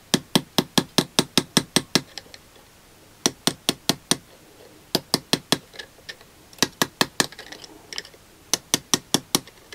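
Small brass hammer tapping on a flat screwdriver held against a differential bearing shim, driving the shim down into an Austin A40 Farina differential housing. Quick, light taps come about five or six a second, in five short runs with brief pauses between them.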